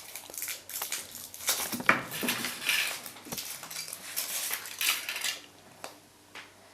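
Kinder Surprise egg being unwrapped and opened: crinkling foil and a run of small sharp clicks and cracks from the chocolate shell and plastic toy capsule, stopping about five and a half seconds in.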